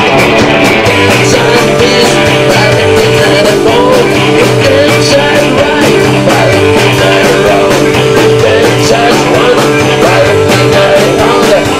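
Rock band playing live and loud: electric guitars and a drum kit, with a low repeating line beneath and a steady beat.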